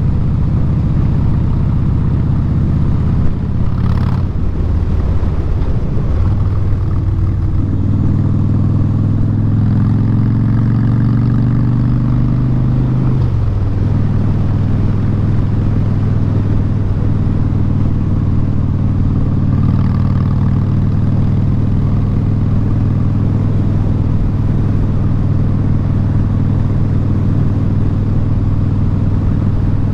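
2017 Harley-Davidson Street Bob's Twin Cam 103 V-twin running loud through Vance & Hines Short Shot straight pipes while under way. The engine note changes a few seconds in, holds steady, then steps down in pitch once, a gear change, about 13 seconds in, and settles into a steady cruise.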